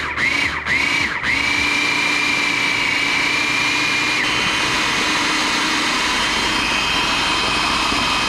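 Electric blender pulsed a few times in the first second, then run steadily with a high motor whine, puréeing smoked king mackerel with mayonnaise and cream cheese into fish dip. The whine shifts slightly higher about four seconds in.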